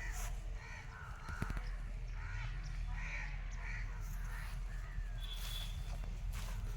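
Birds calling with short, repeated calls over a steady low hum.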